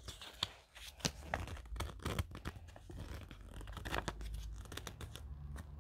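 Pages of a small paper user manual being handled and leafed through: light, scattered paper rustling with a few soft clicks.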